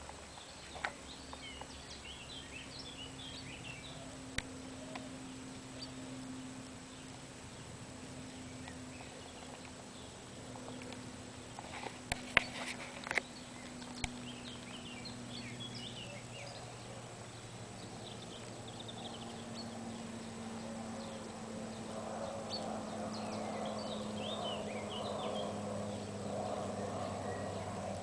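Quiet outdoor ambience: small birds chirping in scattered bursts, over a faint, steady low hum. A few sharp clicks come around the middle, and a soft rushing rises near the end.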